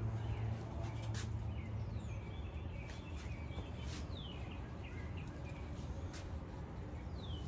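A songbird chirping: short notes and several quick downward-sliding calls, over a steady low rumble and a few faint clicks.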